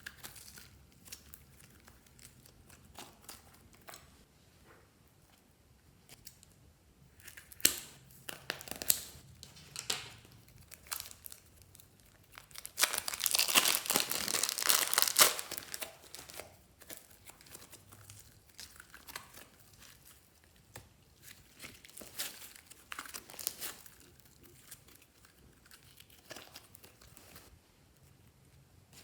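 Slime and piping bags being handled: scattered sticky clicks and crackles, with a denser stretch of crinkling lasting about three seconds midway through.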